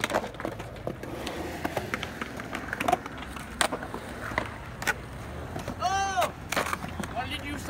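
Skateboard wheels rolling over a concrete skatepark surface in a steady low rumble, with several sharp clacks from the board scattered through. A short voice call comes about six seconds in.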